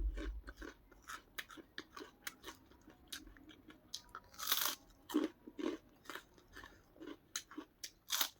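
Crisp white papad being bitten and chewed: a run of irregular sharp crunches, the loudest about halfway through and again near the end.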